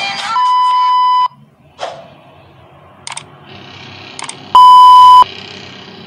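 Sound effects of an animated subscribe-button reminder. There are two steady electronic beeps, the first almost a second long and the second, about four and a half seconds in, shorter and louder. Between them come a short swish and two sharp clicks.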